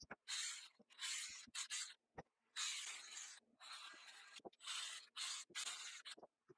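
Repeated hand scraping or scrubbing strokes on the anvil's metal, one hissing, rasping stroke about every second with short pauses and a few light knocks between.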